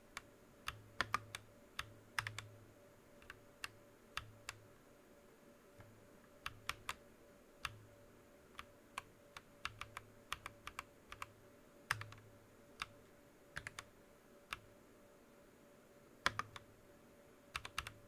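Keystrokes on a TM980 mechanical keyboard with Akko Lavender tactile switches and Drop Keysterine Raspberry keycaps. The keys are pressed at an irregular pace, in single clacks and short clusters with pauses between them.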